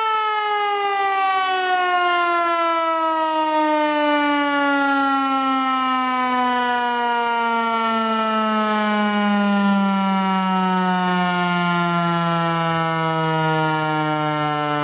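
Federal Signal Eclipse 8 tornado siren winding down. Its steady tone turns into one long, slow, smooth fall in pitch as the siren slows after the steady alert signal, still sounding loud.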